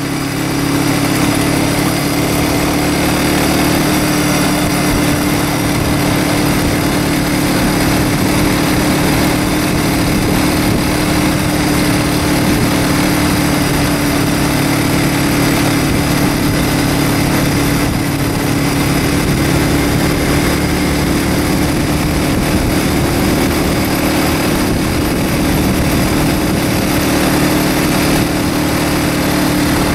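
Engine of a vehicle following cyclists at speed, running with a steady drone, under a constant rush of wind and road noise.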